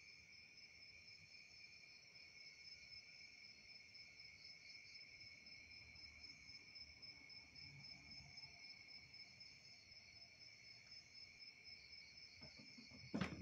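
Faint, steady chorus of crickets singing in the night, several high pitches at once. A sudden sharp thump sounds just before the end.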